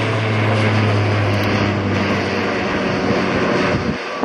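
Aircraft engines running close by: a steady low drone over a broad rush of engine noise, the low hum dropping away suddenly near the end.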